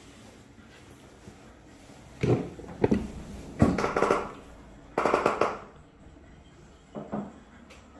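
American Akita puppies barking in play: a run of sharp barks starting about two seconds in, two of them drawn out, and one more near the end.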